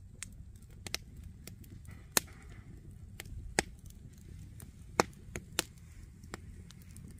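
Wood campfire crackling: logs burning in a fire ring give sharp, irregular pops and snaps, the loudest about two seconds in and again at five seconds.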